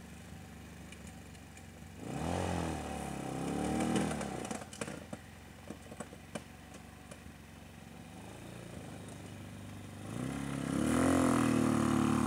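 Homemade ATV's small engine idling, revving up about two seconds in and again strongly near the end as it drives off. A few sharp clicks and clatter sound between the two revs.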